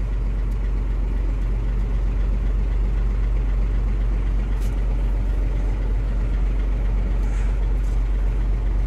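Hino 500 truck's diesel engine idling steadily, heard from inside the cab as an even low hum.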